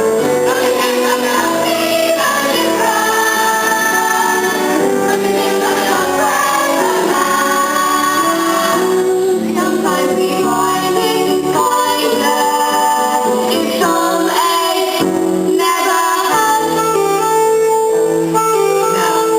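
A musical-theatre song sung by a cast of young performers with instrumental accompaniment, the voices holding and moving between sustained notes.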